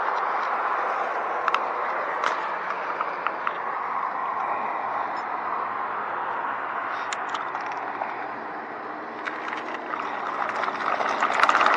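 Recumbent bicycle rolling along: a steady rush of tyre and road noise with scattered sharp clicks and ticks, growing louder with more clicks near the end.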